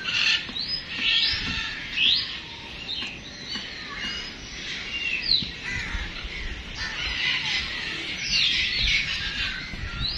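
Many birds chirping together, their short rising calls overlapping in a busy chorus.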